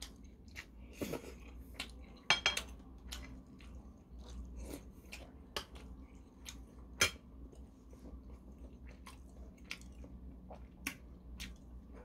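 Close-up eating sounds: a man chewing a mouthful of kimchi stew, with sharp clicks of a metal spoon against the dish. The loudest clicks come about two and a half seconds in and about seven seconds in.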